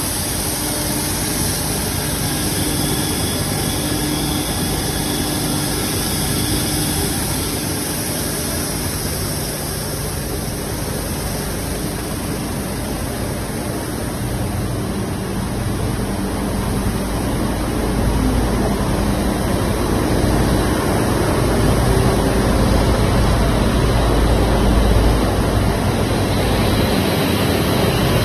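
Plastic film pelletizing line running: electric drive motors and machinery giving a steady industrial hum with a hiss over it, growing somewhat louder about two-thirds of the way through.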